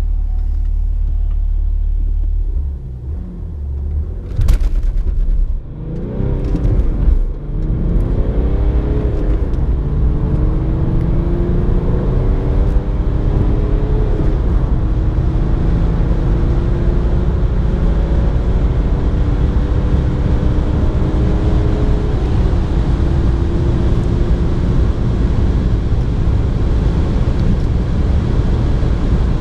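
BMW 325d E90's 3.0-litre straight-six turbodiesel, heard from inside the cabin, accelerating hard through the manual gears: the engine note rises in pitch in each gear and drops back at each upshift, every few seconds at first and more slowly later, over a steady rumble of road noise. A sharp knock sounds about four seconds in, just before the pull begins.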